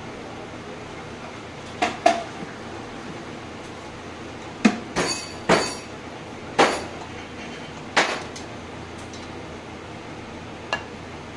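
Ceramic plates and serving things clinking and knocking on a stainless steel counter as food is plated: about eight sharp knocks, several close together in the middle. A steady background hum runs underneath.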